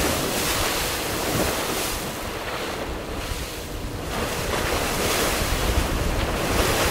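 Sea water rushing and splashing around an offshore racing sailboat under way, with wind buffeting the microphone. It is a steady, loud rush that starts suddenly.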